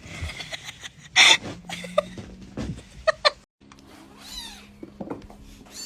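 A domestic cat meowing in several short calls, with one brief, loud noisy burst about a second in.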